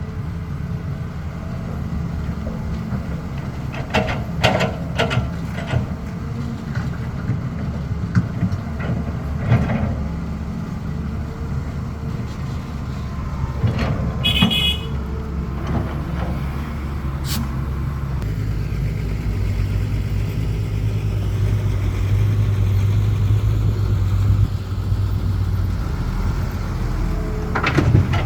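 Caterpillar 320 excavator's diesel engine running under working load, with scattered knocks and clanks from the bucket and material and a brief high squeal midway. The engine drone gets louder and steadier for several seconds in the second half as the machine works harder.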